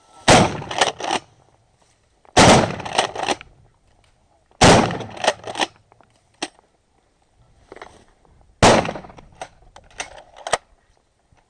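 Loud shotgun fire at incoming Canada geese: four quick volleys of several sharp shots each, the first three about two seconds apart and the last after a longer pause.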